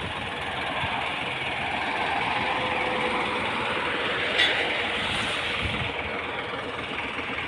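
Truck engine and road noise running steadily, growing a little louder toward the middle and easing off near the end, with a short click about four and a half seconds in.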